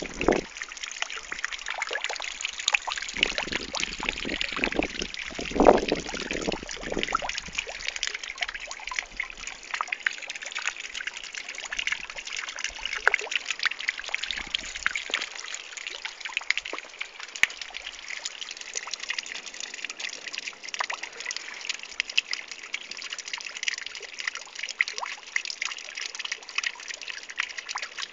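Steady trickle of running water, a fine crackling hiss, with some low knocks during the first seven seconds.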